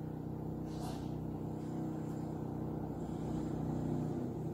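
Steady low motor hum running throughout, with a brief soft rustle about a second in.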